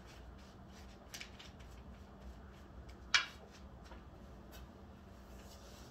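Quiet handling of paper and craft supplies on a worktable: faint rustles and light scrapes, with one sharp crisp paper rustle about three seconds in. A steady low hum runs underneath.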